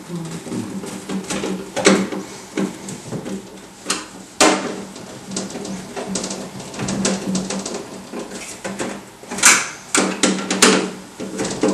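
Irregular clanks, knocks and rattles of galvanized sheet-metal booth parts being handled and fitted together during assembly, over a steady low hum.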